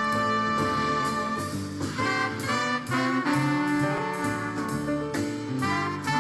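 Instrumental background music with a steady drum beat and sustained horn-like melody notes, in a jazzy style.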